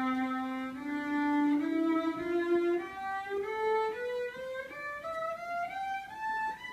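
A violin playing a slow ascending scale, one bowed note at a time. It climbs about two octaves over roughly a dozen notes.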